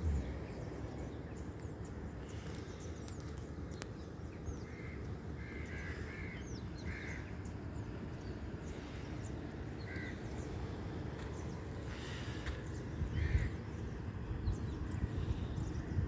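Birds giving short calls, a cluster about five to seven seconds in and single calls near ten and thirteen seconds in, over a steady low rumble.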